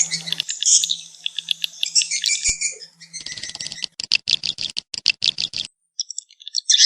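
Swiftlet calls (walet, the edible-nest swiftlet) of the kind played to draw swiftlets to a nest house: rapid high twittering chirps, then a fast train of clicks, breaking off for about a second before the twittering starts again near the end.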